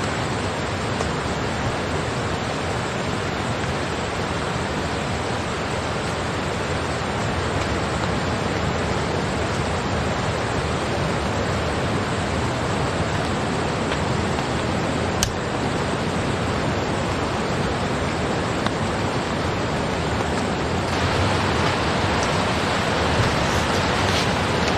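Steady rushing of water, an even hiss with no pauses. It grows a little fuller and louder about twenty-one seconds in, and there is one faint click about fifteen seconds in.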